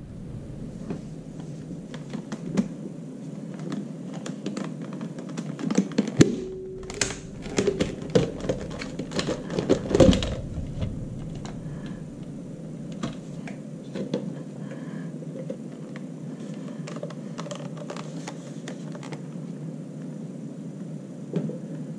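Plastic clicks and knocks as a Dyson V6 cordless vacuum's cyclone, bin and body are handled and taken apart by hand. The clicks come thickest between about six and eleven seconds in, over a steady low background noise.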